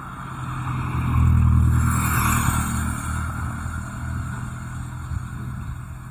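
A motor vehicle passing close by on the road. Its engine hum swells to a peak about a second and a half in, then slowly fades.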